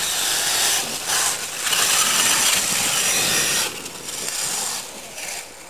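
Radio-controlled monster truck driving hard over loose dirt and dry leaves: a rough, gritty rush of motor and tyres, loud for the first three and a half seconds, easing off, with a shorter burst a little after four seconds before it fades.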